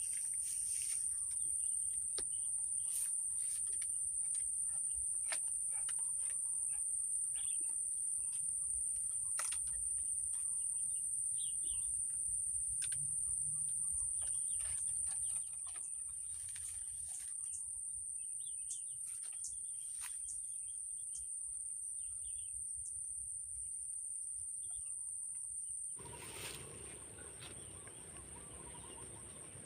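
Steady high-pitched insect drone, with scattered bird chirps and light clicks over it. The drone drops in level about halfway through and again near the end.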